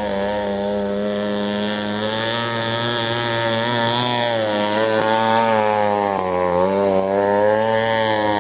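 Straight-piped 21.2 cc Echo string-trimmer two-stroke engine driving a homemade RC speedboat, running under way at speed. Its pitch wavers and dips about six and a half seconds in, then climbs back.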